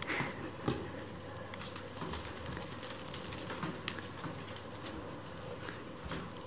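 A cat's paws pattering and its claws tapping on a wooden floor as it plays with a dragged ribbon bow, in a run of light, irregular clicks and scuffs.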